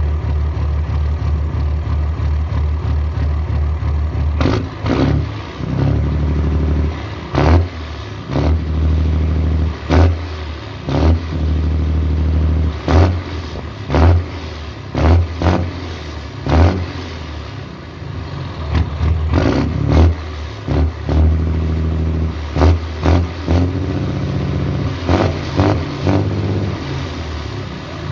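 Diesel truck engine running through a straight pipe with a Master Power exhaust, idling with a steady pulse and then revved in repeated short throttle blips that fall back to idle. The exhaust note is a dry, deep rumble ('ronco seco').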